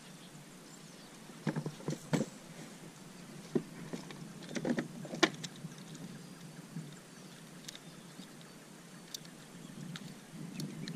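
Scattered sharp clicks and knocks as a freshly caught traíra is handled and clamped in a fish lip-grip tool over a plastic kayak, the loudest about five seconds in, against a faint steady background noise.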